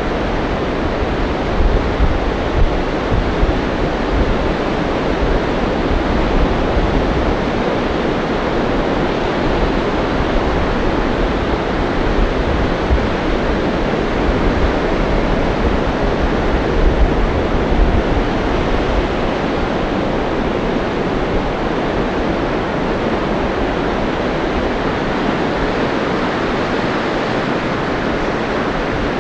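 Ocean surf breaking and washing up a sandy beach, a steady rushing wash. Gusty low wind rumble on the microphone comes and goes through the first half, then eases off.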